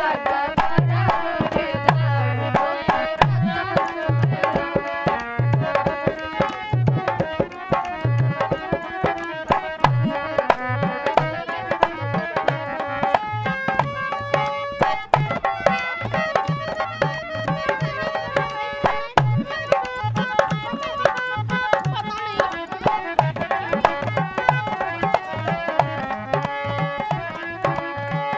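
Harmonium playing the melody of a Bhojpuri kajari folk song with no voice, while a hand drum keeps a steady, even beat of short low strokes underneath.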